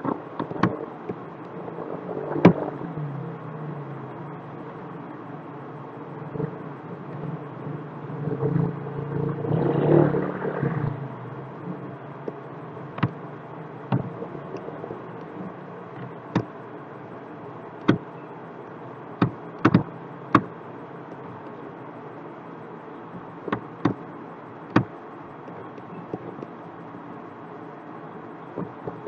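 Computer mouse clicking: single sharp clicks, now and then two close together, over a steady background hiss. A low rumble swells and fades about ten seconds in.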